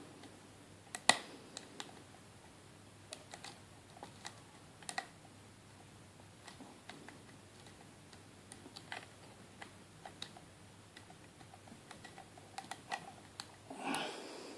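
Faint, irregular metallic clicks and ticks of a pick working the pins inside a 70mm Brinks padlock under tension from a tension wrench, with the lock in a false set. One click about a second in is louder, and a brief louder rustle comes near the end.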